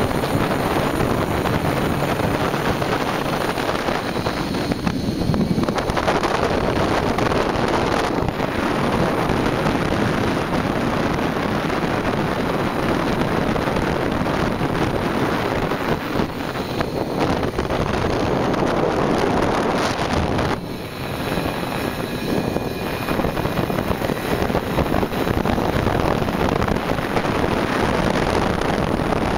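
Simson Duo microcar's small two-stroke engine running steadily on the road, mixed with heavy wind rush on the microphone. The noise briefly dips about two-thirds of the way through.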